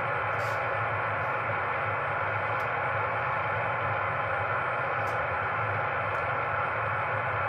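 Ham radio receiver hissing with band noise between transmissions: a steady hiss held within the voice passband, with a low hum under it and a few faint clicks.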